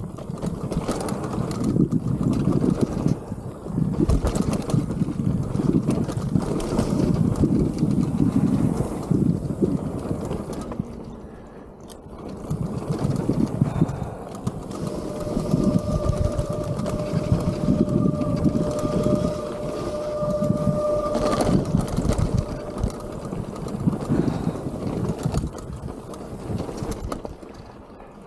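Mountain bike rolling down a dirt trail: wind on the camera's microphone and tyre rumble over the dirt, swelling and easing with speed and dropping away twice. Midway a thin steady whine sounds for about six seconds.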